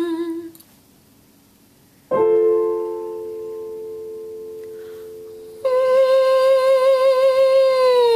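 A piano chord struck once about two seconds in, ringing and fading. About three and a half seconds later a woman's voice hums a held 'ng' with vibrato on the top note of a descending perfect fifth, beginning its slow slide down near the end. Just before the chord, the tail of an earlier 'ng' hum ends and a short pause follows.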